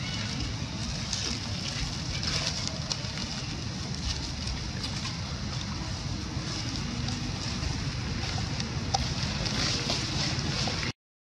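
Wind buffeting the microphone, with a light crackle of dry leaf litter as macaques walk over it. The sound cuts out briefly near the end.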